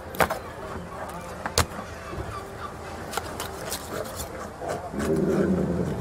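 Fish-cleaning sounds at a fish market: a knife knocking sharply on the cutting table twice and ticking lightly, over a steady background hubbub that grows louder near the end.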